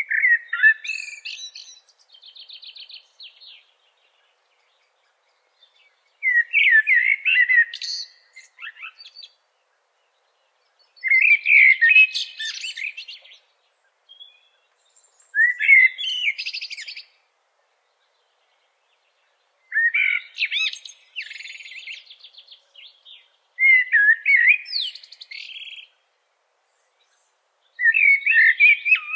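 A songbird singing seven separate phrases, each two to three seconds long, with short gaps between. Each phrase is a quick run of high notes ending in a fast trill.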